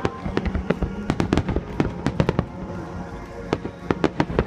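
Fireworks display bursting in rapid succession: many sharp bangs and crackles a second, over music played through loudspeakers.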